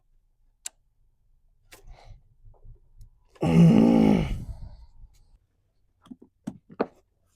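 Scattered small clicks and knocks of parts being worked loose, with a loud, falling vocal sigh of effort about three and a half seconds in.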